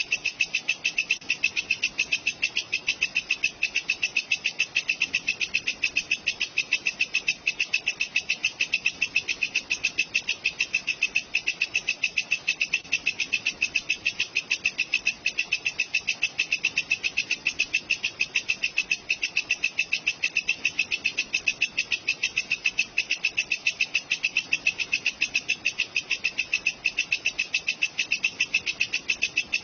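Walang kecek, a katydid, calling in a steady, unbroken run of rapid, evenly spaced high-pitched chirps.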